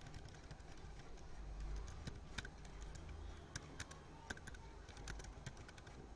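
Computer keyboard being typed on slowly, a few irregular key clicks at a time, over a faint low hum.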